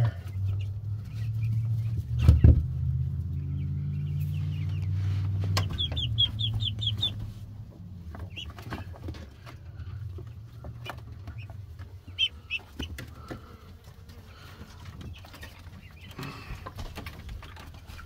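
A flock of meat chickens clucking and peeping, with a fast run of short high chirps about six seconds in and a few more later. A low steady hum underlies the first seven seconds or so, and a single sharp knock comes about two and a half seconds in.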